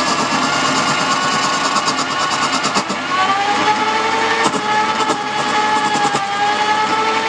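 Wood-turning lathe running, with a steady whine that drifts slightly in pitch over a rough scraping hiss and scattered ticks.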